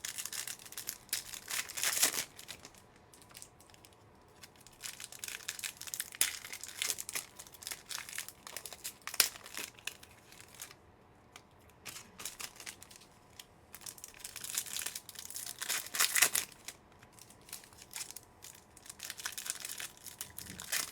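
Trading-card pack wrappers being torn open and crinkled by hand, in irregular bouts of crackling with short lulls between.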